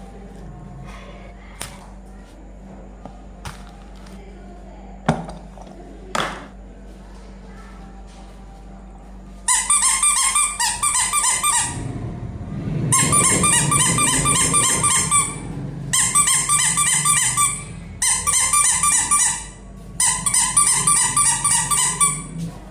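Toys being handled, with a few clicks and knocks. Then about nine seconds in, a toy gives five loud squeaking bursts, each about two seconds long, rapidly pulsing and high-pitched.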